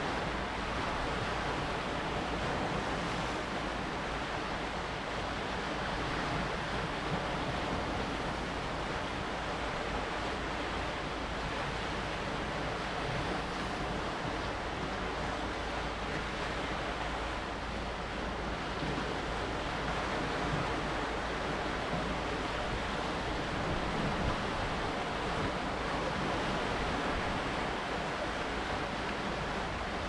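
Lake Superior waves washing steadily against a rocky shoreline, with wind. It is a continuous rush that swells gently, with no single wave standing out.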